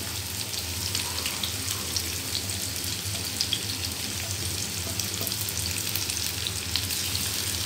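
Sliced garlic and shallots sizzling steadily in hot oil in a frying pan, with a few faint clicks as red bird's eye chilies are tipped in.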